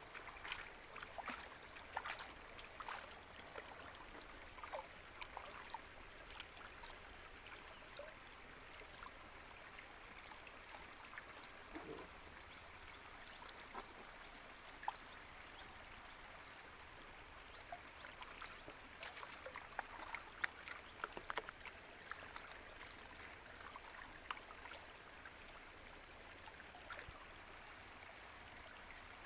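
Faint water sloshing and gritty scraping as wet sand and gold concentrate are swirled and kneaded by hand in a pan, with scattered small clicks of grains and fingers against the pan. This is the stage where black sand is still being worked out of the concentrate.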